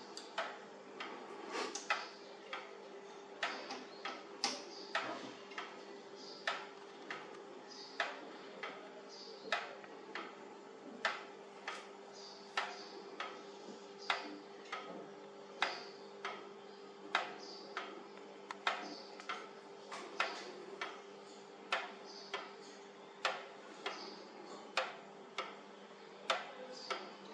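Jolema weight-driven pendulum wall clock ticking: its escapement gives a steady tick-tock, a sharp click about every three-quarters of a second.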